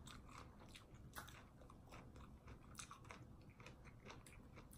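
Faint chewing: irregular soft clicks and smacks of mouths chewing lime.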